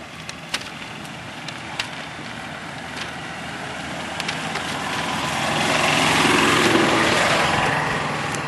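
Small engine of a utility cart passing close by, growing louder to a peak about six seconds in and then fading away.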